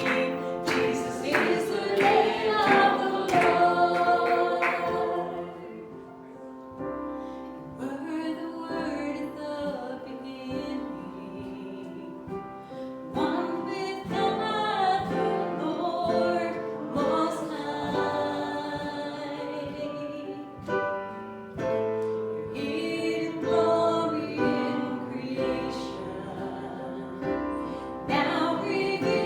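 Church worship singing: a group of voices, women's voices among them, singing a gospel song with music, with a run of sharp rhythmic strokes in the first five seconds.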